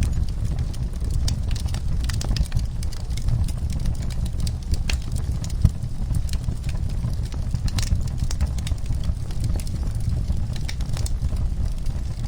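Wood fire in a fireplace crackling, with irregular sharp pops and snaps over a steady low rumble of burning; one louder pop a little past the middle.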